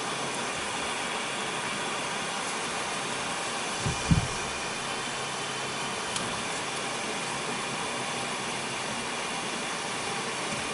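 Steady whooshing hiss of the UP! Mini 3D printer's cooling fan running, with a brief low thump about four seconds in and a light click about two seconds later.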